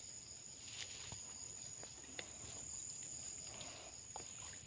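A steady high-pitched chorus of insects, with a few faint splashes and drips of water as a net is lifted by hand from the water.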